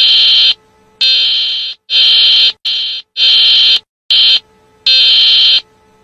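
Czech emergency alert alarm played back: a loud, harsh, steady-pitched electronic buzz sounding in seven uneven on-off pulses, some long and some short. It sounds like someone trying to make an alarm and failing miserably.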